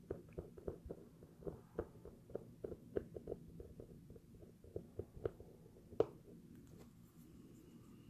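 Faint, irregular small clicks and taps of a plastic UV-resin pen tip against a vinyl soft-top window and tape as clear resin is dabbed along a crack, with one sharper click about six seconds in.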